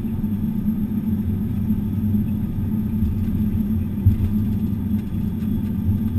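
Steady low rumble of an aircraft rolling down the runway after touchdown, heard from inside the cockpit, with a few louder low bumps about four seconds in.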